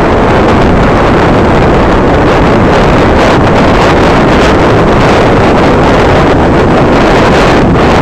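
Loud, steady wind buffeting the camera microphone, a constant rumbling noise that covers everything else.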